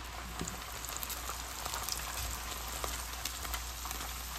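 Whisked eggs frying in melted butter in a cast-iron skillet: a steady sizzle peppered with many small crackles and pops.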